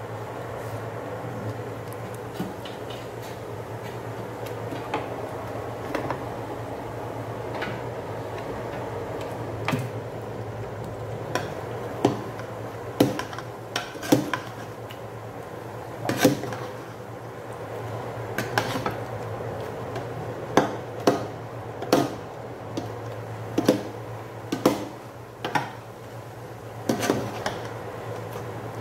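Long metal ladle stirring fish in coconut milk in a large aluminium pot, knocking and scraping against the pot with irregular sharp clinks that come more often in the second half. A steady low hum runs underneath.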